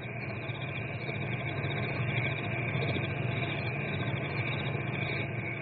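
Sound effect of crickets chirping at night: a continuous run of rapid, high-pitched chirps over a low steady hum.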